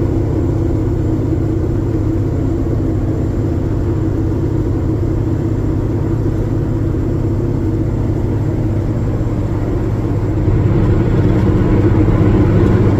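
Heavy-haul semi truck's diesel engine pulling hard under load up a steep grade, a steady drone that grows a little louder about ten and a half seconds in.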